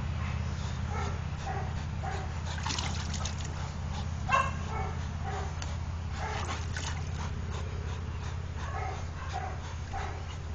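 Dogs vocalizing while they play: a string of short, pitched whines and whimpers, with one louder, sharper bark-like call about four seconds in.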